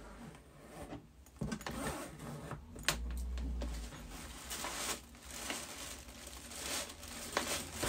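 A suitcase being opened: its zipper pulled along in several runs, with a couple of sharp clicks and a dull knock as the case is handled.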